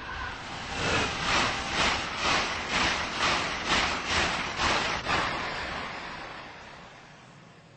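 A train passing at speed: a fast, regular beat of about two to three wheel knocks a second that fades away over the last few seconds.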